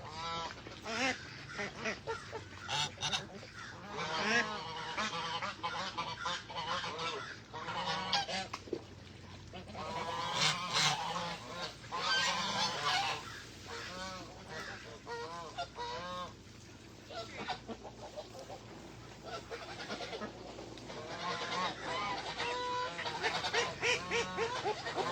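Domestic geese honking in repeated bouts of short, harsh calls, with a quieter lull about two thirds of the way through.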